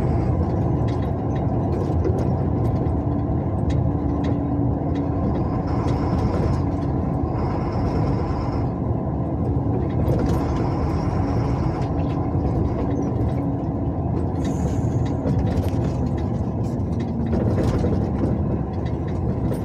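A semi-truck's diesel engine running steadily under road and tyre noise, heard inside the cab at cruising speed, with a steady low hum and frequent small clicks and rattles.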